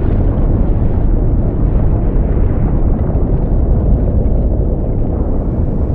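Erupting volcano: a loud, continuous low rumble that eases slightly near the end.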